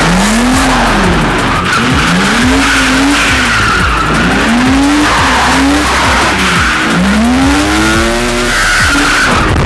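A BMW Z3 drift car's swapped-in M52 straight-six, loud through its exhaust, revving up and dropping back again and again, about once a second, as it holds a drift. Its rear tyres squeal and skid throughout.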